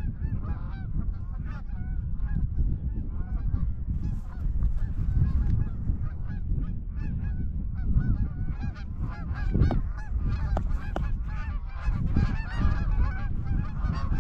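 A flock of Canada geese honking and clucking, many calls overlapping throughout, over a low rumble of wind.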